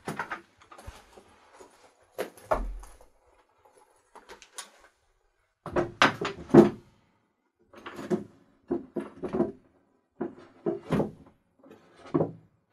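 A heavy championship belt being handled and set onto a wooden shelf: a series of knocks, scrapes and clatters in short clusters, with a dull low thump about two and a half seconds in.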